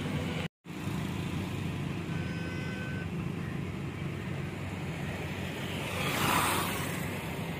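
Steady low engine rumble of vehicles outdoors, cut out completely for a moment about half a second in. About six seconds in, a rushing noise swells and fades.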